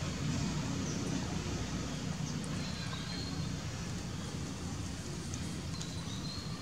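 Outdoor background ambience: a steady low rumble with a few faint, short high chirps.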